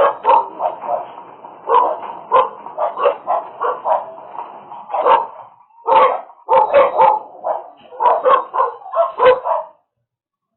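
A dog barking repeatedly in short, separate barks, stopping shortly before the end.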